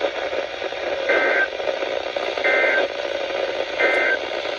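Weather radio receiver hissing with static as three short bursts of EAS SAME data warble come through, evenly spaced a little over a second apart: the end-of-message code that closes an alert.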